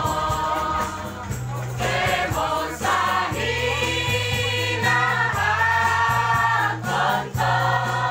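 Choir of women's voices singing sustained notes in unison and harmony, the pitch moving every second or two, over steady low bass notes that change about once a second.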